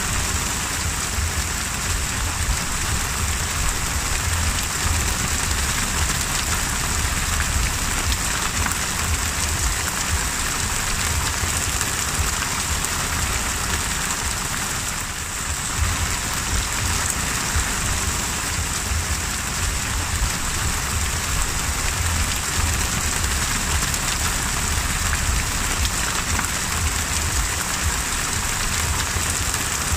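Heavy rain falling on the open sea: a steady, dense hiss of drops striking the water surface over a low rumble, easing slightly for a moment about halfway.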